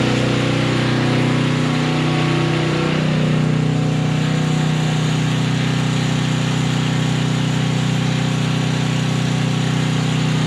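Portable gasoline generator engine running steadily with no load, a constant even hum. It is being run until the tank is empty, so the carburetor is left dry for storage.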